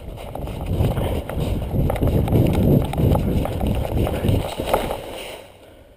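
Footsteps of a person running through dry fallen leaves: a quick, rhythmic run of crunching thuds that dies away about five seconds in.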